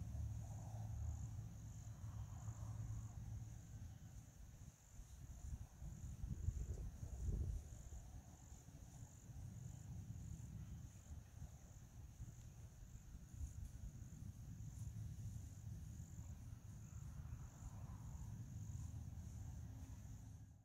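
Faint insect chorus: a steady, high-pitched drone that pulses evenly, over a low rumble.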